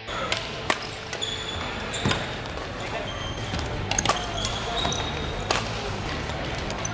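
Badminton rackets striking shuttlecocks in a large sports hall: sharp, irregular smacks, several close together around four seconds in, with short high squeaks from court shoes and players' voices in the background.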